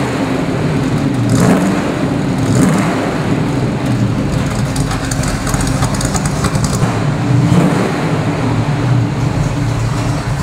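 1972 Pontiac GTO's 455 cubic-inch big-block V8 running at a standstill through its new dual exhaust, with a few brief revs of the throttle.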